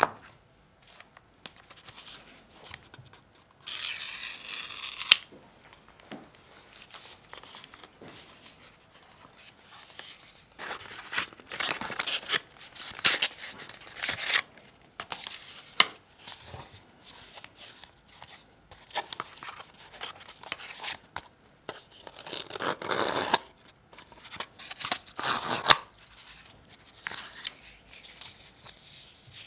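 Paper and cardboard packaging of an Apple Watch Ultra being opened by hand. A steady tearing lasts about a second and a half, about four seconds in. After it come repeated bursts of rustling, sliding and crinkling paper with light clicks.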